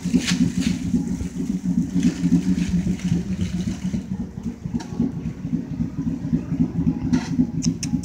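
Steady low mechanical rumble with a hum, with a few short crackles near the end.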